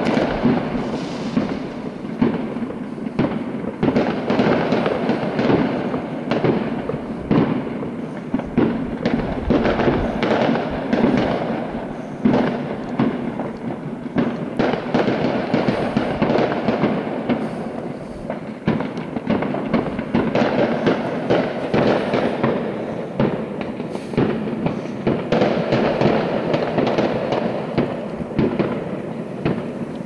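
Fireworks going off continuously, a dense stream of overlapping bangs and crackles with no pause.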